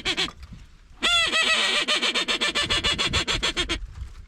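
Waterfowl calling in loud runs of honking, quacking notes. About a second in comes a long first note, then short notes at about ten a second that stop shortly before the end; a new run starts at the very end.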